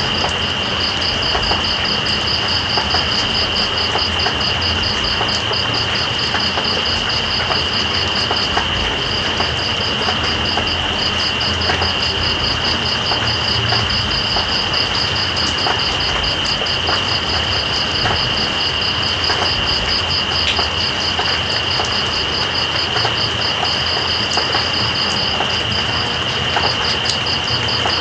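Night insects, crickets among them, calling steadily over constant rain: one holds an unbroken high trill while another chirps higher in rapid, even pulses. Scattered ticks of raindrops sound through the rain's hiss.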